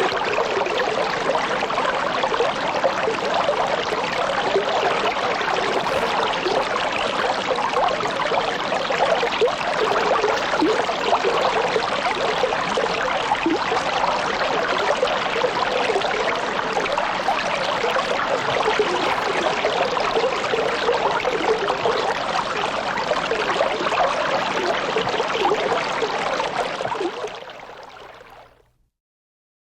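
Fish pond waterfall: water spilling and splashing steadily into the pond, fading out near the end.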